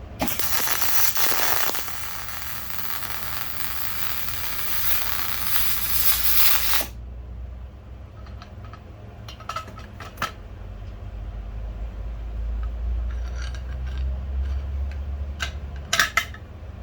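A loud, steady hiss for about seven seconds that cuts off suddenly, followed by a few light, ringing metallic clinks, as of small aluminium parts being handled or set down.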